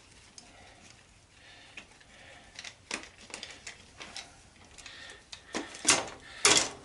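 Screwdriver turning screws out of a metal antenna rotator housing: scattered small metallic clicks and scrapes, then two louder metal clanks near the end.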